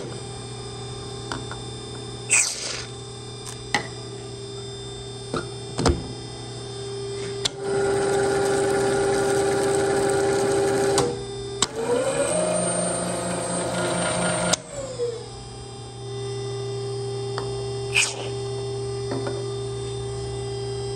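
Flex-arm power tapping machine running a 5/8-11 tap into steel: a steady motor hum throughout, growing louder for a few seconds as the tap cuts, then a short rise, hold and fall in pitch, with a few sharp clicks in between.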